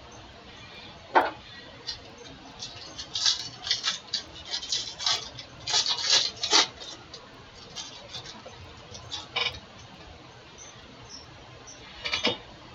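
Trading cards and pack wrappers being handled: a sharp click about a second in, then scattered crinkles and flicks, thickest between about three and seven seconds in, with a short burst near the end.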